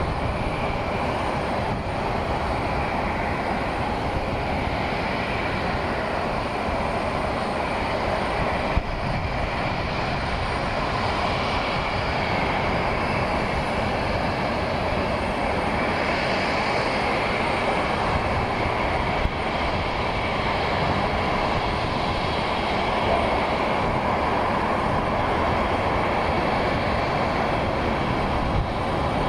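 Jet aircraft engines running, a steady, loud rushing noise that holds constant throughout.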